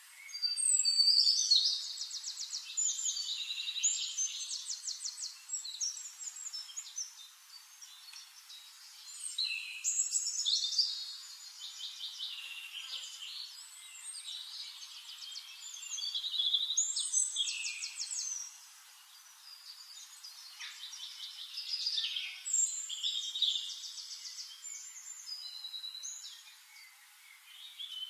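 Songbird singing in phrases of rapid trills and chirps, repeated every few seconds.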